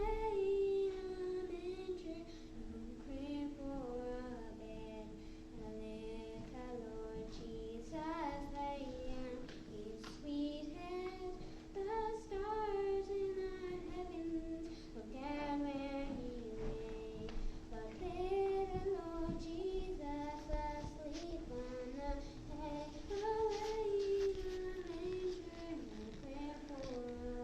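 Children's voices singing a slow melody over steady, sustained accompaniment notes.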